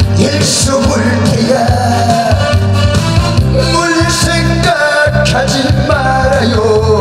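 A man singing a Korean popular song (gayo) live into a handheld microphone over a recorded backing track with bass and drums.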